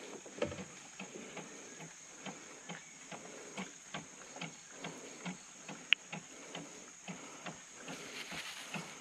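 Spinning fishing reel being cranked through a retrieve, a regular light clicking about twice a second, over the steady high drone of insects. One sharper click about six seconds in.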